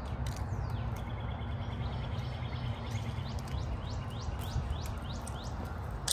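Songbirds chirping: many quick falling chirps and a short trill, over a steady low rumble.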